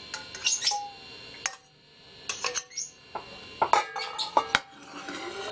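Metal spoon clinking and scraping against a mixing bowl and a small metal saucepan, in irregular short strokes, as annatto oil is stirred into pastel masa to colour it.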